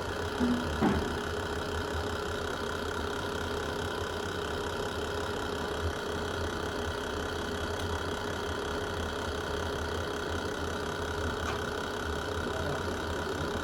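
Wood fire burning in a fireplace with a steady low rumble. A couple of sharp pops from the wood come about half a second and a second in, and a smaller crackle comes near the middle.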